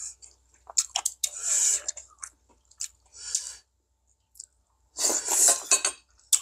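Chopsticks and spoons clicking against ceramic plates and earthenware soup bowls, with short eating noises in between.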